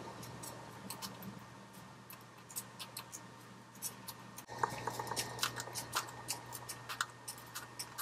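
A cockatiel and a budgerigar cracking seed husks: rapid, irregular crisp crunching clicks, growing busier about halfway through, over a faint steady hum.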